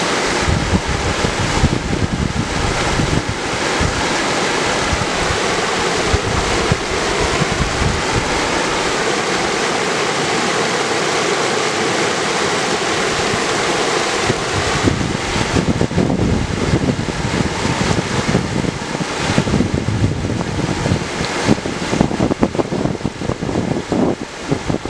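Mountain river rushing steadily over granite slabs in a small whitewater chute.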